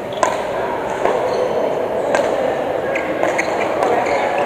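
Badminton rally: rackets striking the shuttlecock, about five sharp cracks roughly a second apart, over steady background noise and voices.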